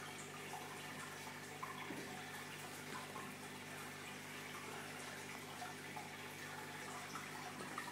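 Reef aquarium's circulating water trickling and dripping, over a steady low hum.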